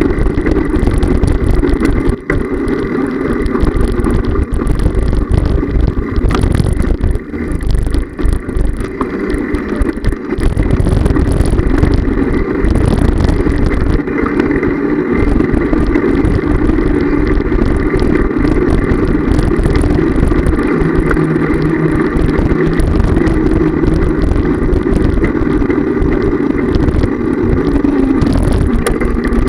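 Steady rumbling road and wind noise of riding, picked up by a camera mounted on the handlebars, with brief dips in the noise a few seconds in.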